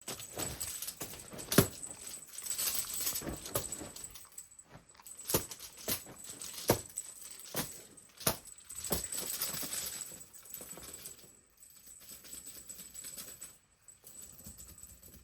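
Cat wand toy rustling and jingling as a cat plays at hunting it, with several sharp knocks spread through the first half.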